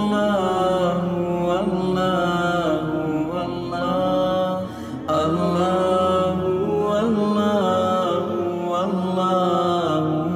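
Background music: a chanted vocal holding long notes that slide up and down in pitch.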